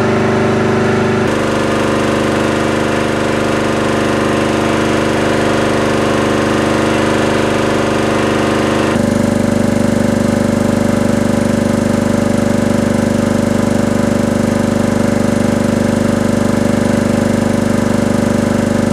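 Hatlapa V150 reciprocating marine air compressor running steadily with a rapid, even piston beat and a pitched running note, its gauges showing it building pressure. The running note shifts abruptly about a second in and again around nine seconds in.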